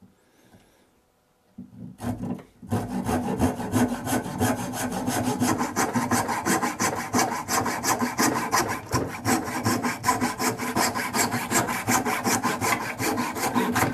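Hand saw cutting through a wooden chair upright held in a bench vise, in quick, even back-and-forth strokes that start about two seconds in.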